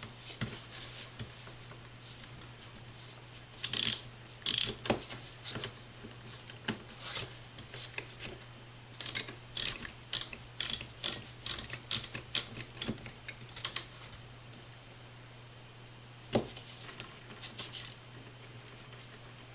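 Small sharp clicks of hand tools and metal parts being worked on an RC truck's front steering knuckles. A few clicks come about four seconds in, then a run of about a dozen evenly spaced clicks, a little over two a second, in the middle, and one more near the end.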